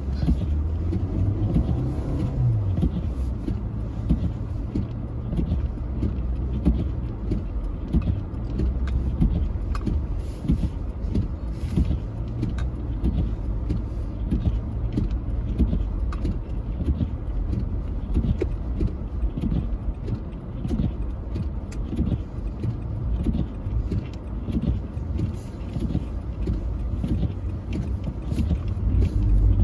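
Car engine running steadily, its pitch dropping about two seconds in.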